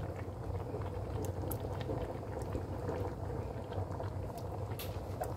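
Laing, taro leaves in coconut milk, simmering and bubbling in a pan, with small scattered pops over a steady low hum.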